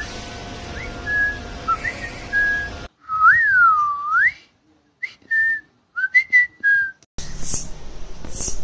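A person whistling in short notes and pitch slides, including one long note that swoops up, falls and rises again. Near the end come a few short hissing sounds.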